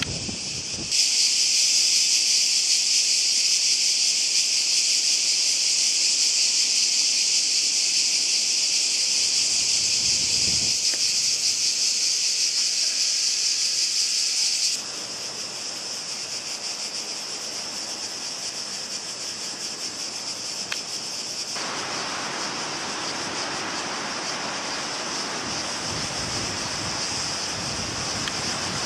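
Dense chorus of summer cicadas, a steady high-pitched buzz that starts about a second in and becomes quieter about halfway through. About three-quarters of the way through, a steady rushing sound of surf breaking on rocks joins it.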